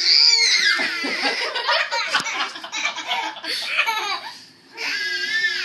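Toddlers laughing and squealing, with a long high squeal at the start and another near the end.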